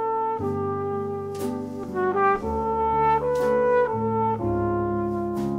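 Jazz trumpet playing a slow melody of held notes over chords on a Roland keyboard, with a short sharp hit about every two seconds.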